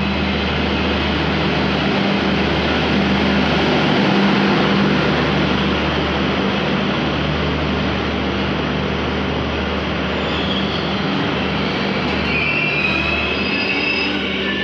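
Diesel-hauled passenger train rolling into a station: steady loud rumble of wheels on rails with a low hum. Thin high-pitched wheel squeals join in about ten seconds in as it slows.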